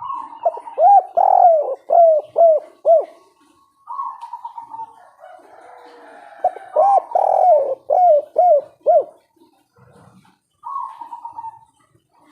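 Spotted dove (tekukur) cooing the 'kuk 3' song: two full phrases, each a quick run of short arching coos, with shorter single coos between them.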